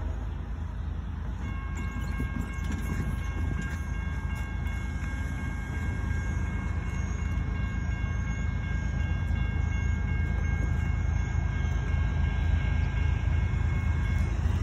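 Approaching CSX train: a low rumble that grows slowly louder, with a faint steady high tone held from about a second and a half in until just before the end.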